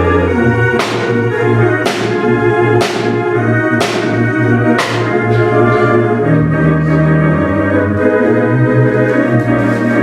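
Organ-like music with sustained chords, struck by five sharp hits about a second apart in the first half, each ringing off briefly.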